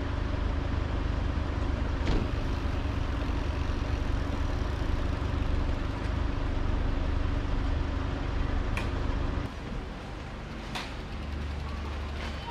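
Taiwan Railway local train running: a steady rumble with a low hum and a few light clicks, getting quieter about three-quarters of the way in.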